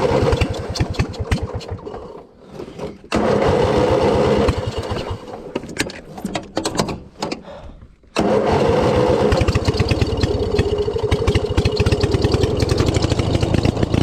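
Riding lawn mower's small engine running with a rapid, even putter; it fades away twice and comes back up abruptly each time, then runs steadily.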